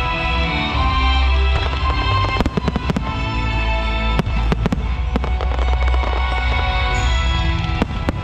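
Aerial fireworks bursting and crackling in quick irregular clusters, over music with a heavy bass.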